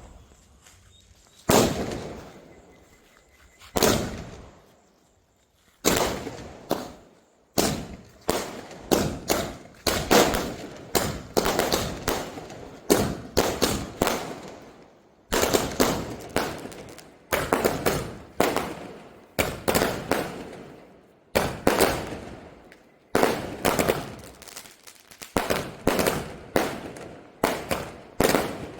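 Mr. Big 60-shot Jackpot firework cake firing its shots one after another. Sharp bangs come a couple of seconds apart at first, then quickly in clusters of several a second, each dying away within a fraction of a second.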